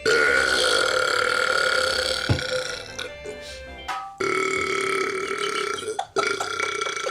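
A man's long, drawn-out burps: one lasting about three seconds, then after a short break another of about two seconds, and a third starting just after six seconds in.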